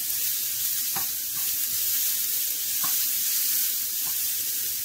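Spiralized zucchini noodles sizzling steadily in hot olive oil in a frying pan on medium-high heat, a sign that the pan is nice and hot. Three faint clicks come from metal tongs against the pan as the noodles are tossed.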